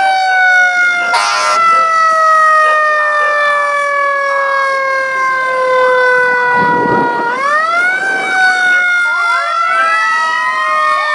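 Fire truck mechanical siren wailing, its pitch slowly sinking as it coasts down, then spun back up about seven seconds in. A short horn blast comes about a second in, and other sirens wind up near the end.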